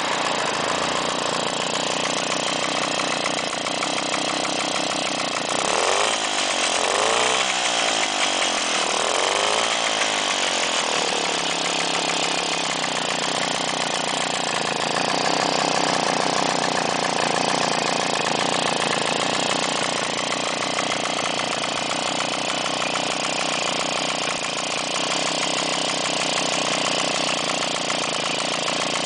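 Puch Maxi moped's 50 cc single-cylinder two-stroke engine running on a test bench during a test run. It is revved up and back down about three times a few seconds in, then runs steadily.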